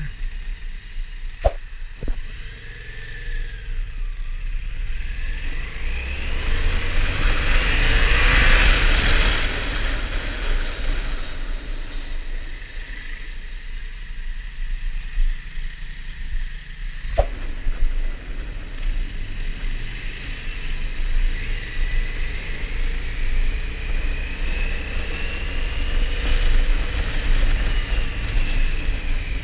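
Yamaha MT-07's parallel-twin engine heard from on board while riding through slow city traffic, its pitch rising and falling as the throttle is opened and eased off, mixed with wind rush that swells about eight seconds in. Two sharp clicks stand out, one a second or so in and one about seventeen seconds in.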